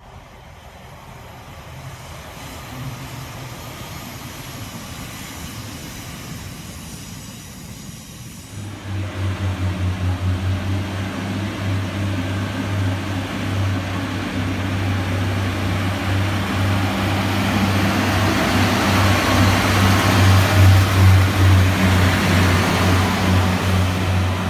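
Pacer diesel railbus running under power: a low throbbing drone from its underfloor diesel engine starts abruptly about nine seconds in, with wheel and rail noise building up and loudest near the end.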